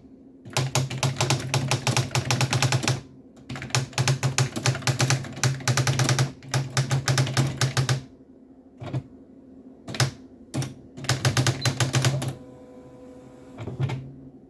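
Sharp PA-6000 typewriter printing: fast runs of sharp strikes over a low motor hum. Three long runs fill the first eight seconds, then come a few single strikes and a short run, and near the end a softer steady whir.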